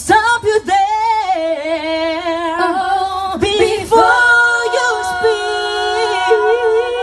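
Female vocal group singing live through stage speakers: wavering runs for the first few seconds, then from about four seconds in several voices hold a long chord in harmony, with vibrato.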